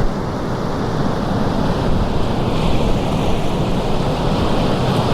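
Ocean surf rushing steadily, with strong wind buffeting the microphone.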